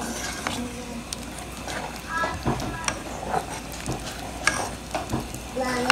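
A spatula stirring chunky mixed vegetables in simmering broth in a pot, with repeated short clicks and scrapes against the pot over a steady bubbling hiss.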